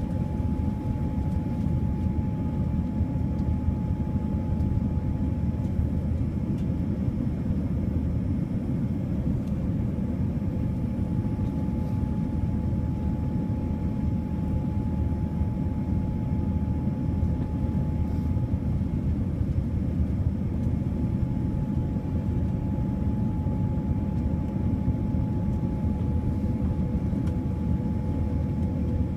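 Steady cabin noise of a Boeing 787-9 airliner in flight: a low, even rush of air and engine noise with a faint steady hum above it.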